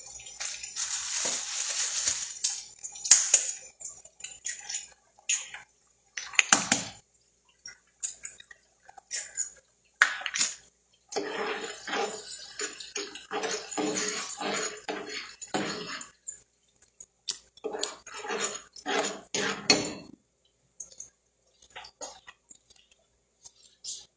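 Kitchen clatter while cooking: utensils, dishes and a pan knocking and clinking in quick irregular runs, after a short hiss in the first couple of seconds.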